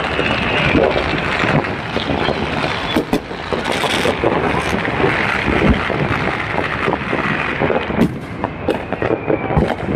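Fireworks going off: a dense run of pops and crackles from many bursts, over a constant rushing noise on the microphone.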